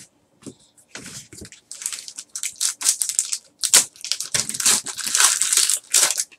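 Foil trading-card pack wrapper crinkling and tearing as it is ripped open by hand, in a quick run of sharp crackles that grows busier after the first couple of seconds.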